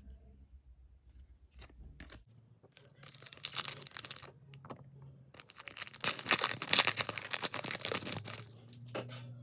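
Foil trading-card pack wrapper being torn open and crinkled, in two stretches of tearing, the second longer.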